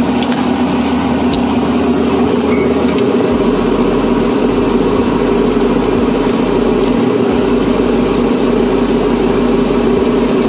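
A loud, steady mechanical hum that holds at an even pitch and level, with a few faint clicks over it.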